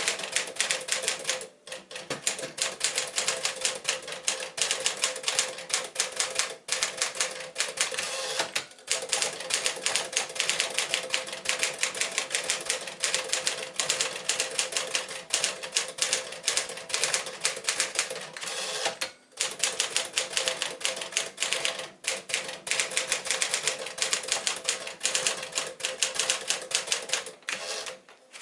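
1957 Smith-Corona Clipper manual portable typewriter being typed on at speed: a fast, continuous clatter of key strikes with a few short breaks, stopping shortly before the end.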